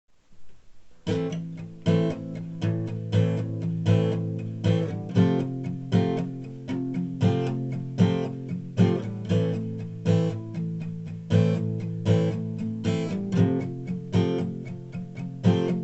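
Acoustic guitar strumming chords in a steady rhythm, starting about a second in: the instrumental intro of a song.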